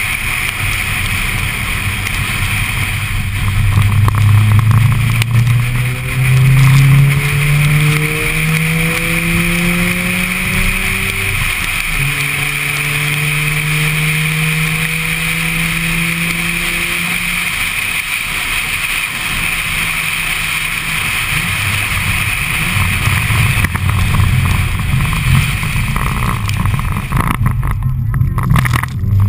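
Mazda RX-8's two-rotor rotary engine heard from inside the cabin, pulling up through the revs, changing gear about halfway through and pulling up again, then easing off. A steady hiss of tyres on the wet track runs underneath.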